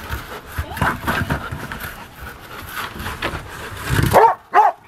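A dog nosing a rubber ball about on a wooden deck, with scuffs and knocks of ball and paws on the boards, then two short, high-pitched yelps from the dog near the end.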